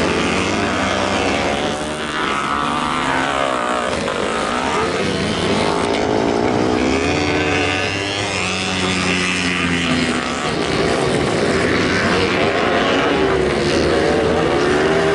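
Several vintage motocross bikes racing, their engines revving up and down and overlapping.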